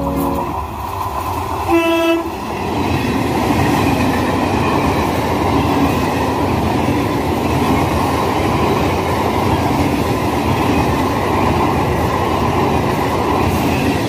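Electric multiple-unit local train sounding one short horn blast about two seconds in, then passing close by with a steady, loud rumble of its wheels on the rails.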